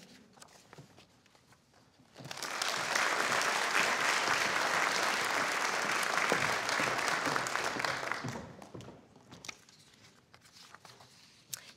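Audience applauding in a large hall, starting about two seconds in and dying away after about six seconds.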